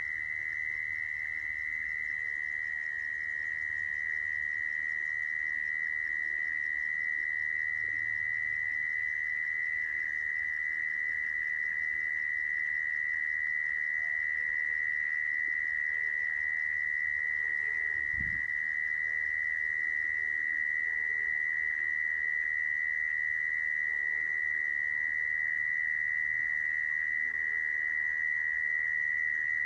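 Mole cricket's calling song, a single unbroken high-pitched trill at an even level, used as a lure sound for trapping mole crickets. A brief soft thump sounds about two-thirds of the way through.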